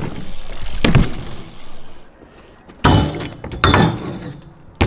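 BMX bike in a concrete skatepark: tyres rolling on the ramp, then four hard clanking knocks as the bike lands and its pegs and wheels strike a metal rail.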